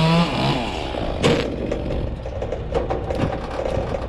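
A small engine revs up and drops off just after the start. About a second later comes a single sharp crack or knock, over a steady low engine running with scattered knocks.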